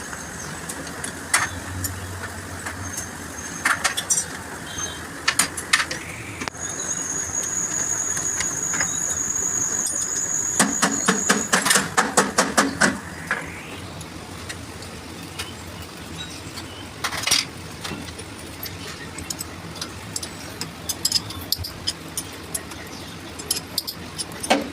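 Repeated sharp metallic clicks and knocks of hand tools on metal parts over a steady workshop background, with a high, steady whine lasting about five seconds near the middle.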